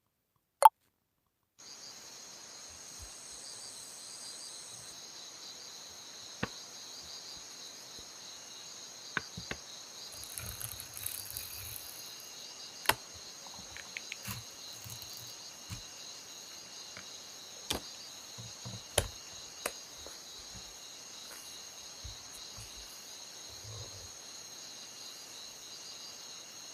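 Steady high insect chorus, like crickets, starting about a second and a half in, with a dozen or so scattered sharp clicks over it.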